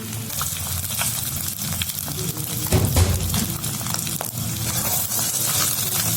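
Food sizzling in hot oil in a pan, with scattered clicks and scrapes of a utensil stirring it, and a louder knock about three seconds in.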